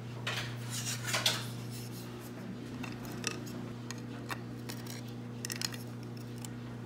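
Light metal clinks and clicks as a metal FID CV protector plate is handled and fitted onto an RC car's aluminium hub, with a busy cluster of clatter in the first second or so and a few scattered clicks after. A steady low hum runs underneath.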